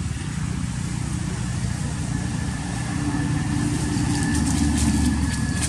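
A motor engine running steadily with a low rumble, growing louder in the second half.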